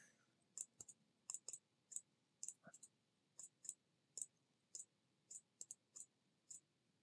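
Faint computer mouse button clicks at an uneven pace, often two in quick succession.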